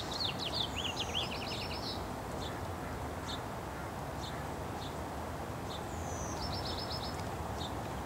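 A songbird singing: a phrase of fast trilled and sweeping notes at the start and a shorter phrase of quick repeated notes about six and a half seconds in, with scattered single chirps between, over steady low background noise.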